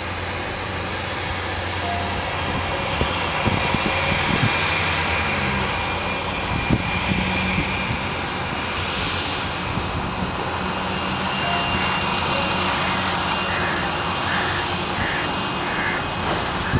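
Embraer Legacy business jet taxiing, its twin rear-mounted Rolls-Royce AE 3007 turbofans running at low taxi power: a steady high whine over a constant rumble.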